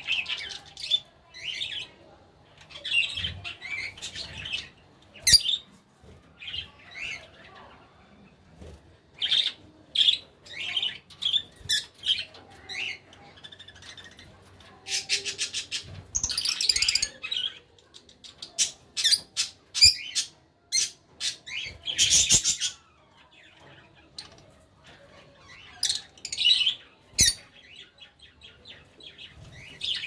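Several Fischer's lovebirds calling: scattered short, sharp chirps and squawks throughout, with a brief flutter of wings about halfway through.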